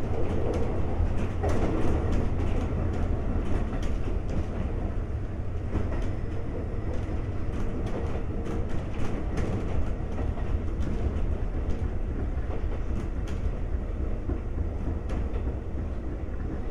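Running sound of a Konan Railway 7000-series electric railcar (ex-Tokyu 7000) heard from inside the car: a steady rumble of wheels on rail, with wheels clicking over rail joints now and then.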